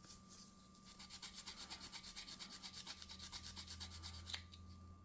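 Quick, even back-and-forth rubbing on a walnut gun grip, taking the old polyurethane finish off. The strokes are faint and start about a second in.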